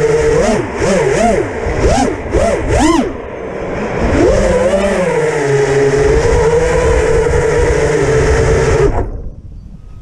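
Six-inch FPV quadcopter's brushless motors and propellers whining, heard from its onboard GoPro with wind rushing over the microphone. The pitch swings quickly up and down several times in the first three seconds as the throttle is punched, then holds steadier. The motors cut out about nine seconds in, when the quad comes down onto the grass.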